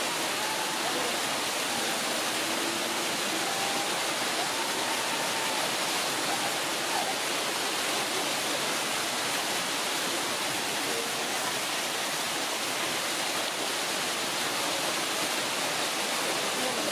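Steady, unbroken rush of running water, as from a waterfall or stream feeding the enclosure's pool.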